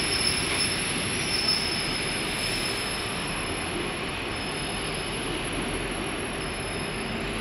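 Passenger train carriages coming to a stop, with a thin brake squeal that dies away within the first two seconds. After that there is only a steady hum and rumble.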